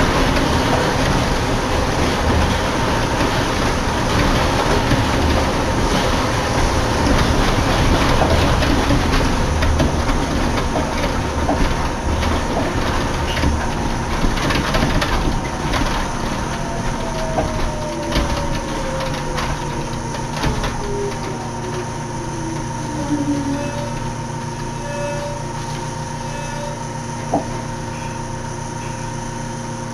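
Inside a Yukarigaoka Line rubber-tyred people-mover car running and then braking into a station. The running rumble eases off while a motor whine falls steadily in pitch through the middle, leaving a steady low hum, with one sharp click near the end.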